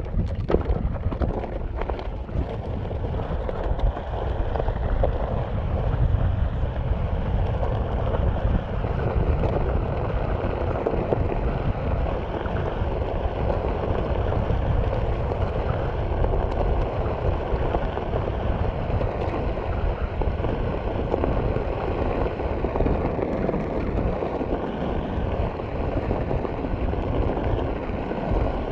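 Onewheel's tyre rolling over a gravel desert trail, a steady crunching gravel noise, with wind buffeting the action camera's microphone.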